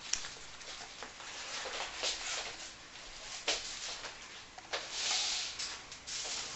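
Rustling and light handling of gear bags and their contents: scratchy fabric noise with a few small knocks, and a longer rustle about five seconds in.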